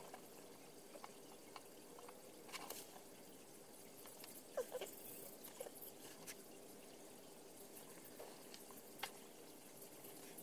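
Pen-style craft knife cutting out shapes from a printed sheet on a cutting mat: faint, scattered scratches and small ticks, the loudest about four and a half seconds in, over quiet room tone with a faint steady hum.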